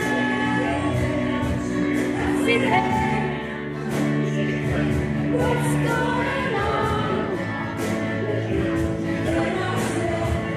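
Woman singing into a microphone, amplified, over instrumental accompaniment in a song with long held notes.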